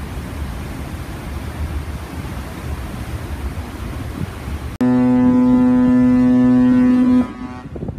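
Wind and water noise with a low rumble over the open deck of the Pont-Aven ferry, then about five seconds in the ship's horn sounds one long, loud, steady blast lasting a little over two seconds.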